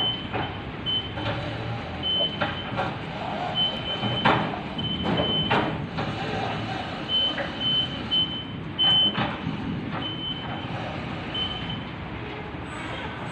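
Komatsu 1.5-ton stand-up battery-electric reach truck on a test run, its warning beeper sounding in short, high, irregularly spaced beeps, with scattered clunks and knocks from the truck.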